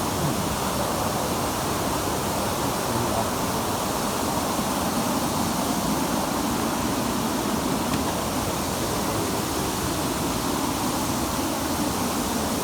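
Steady rush of a waterfall and its stream, a constant even noise.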